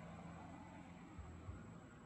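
Near silence: faint irregular low rumble and hiss, with a thin steady high-pitched whine.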